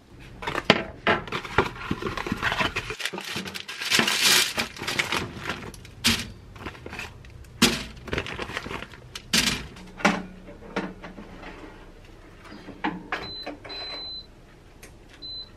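Kitchen handling sounds, with rustling of packaging and paper and scattered clicks and knocks. Near the end, a Zolele air fryer oven's control panel beeps three times, the middle beep longer, as its dial is turned to set the temperature and time.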